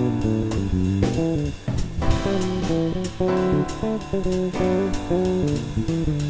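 Electric bass guitar playing a quick, melodic jazz improvisation, a run of single plucked notes moving up and down, with drums keeping time behind it.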